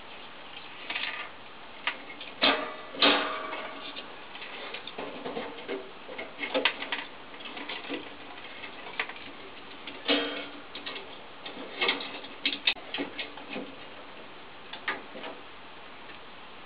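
Irregular clicks, taps and small knocks from hands and a tool working on parts of an e.l.m. Leblanc GLM 5 wall-mounted gas boiler, with the sharpest knocks about two and a half seconds in, at three seconds, at ten seconds and at twelve seconds.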